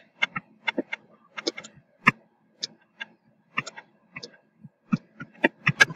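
Stylus tapping and clicking against a tablet screen while handwriting words: a run of irregular sharp clicks, several a second.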